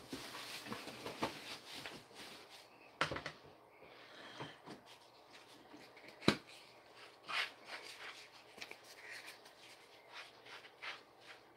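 Scattered rustling and light clicks of things being handled in a small room, with one sharp knock about six seconds in.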